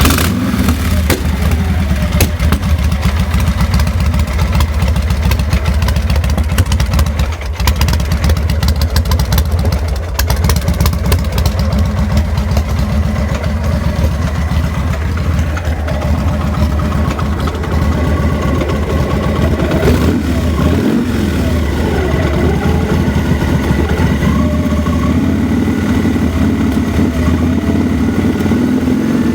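2000 Victory V92SC's V-twin engine idling roughly, dipping briefly about seven and ten seconds in. The rough idle is the fault being shown on this bike, which also stalls.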